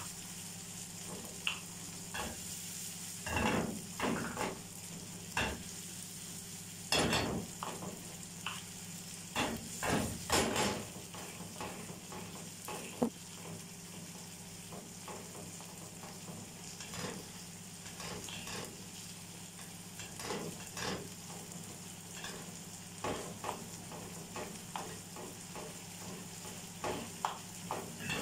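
Chicken strips and chopped tomatoes sizzling in a frying pan with a steady hiss, while a wooden spoon stirs them, scraping against the pan in irregular strokes.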